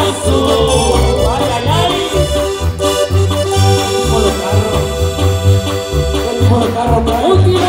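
Live Tierra Caliente band playing an instrumental passage: an accordion-like melody from the keyboards over a steady, pulsing bass line.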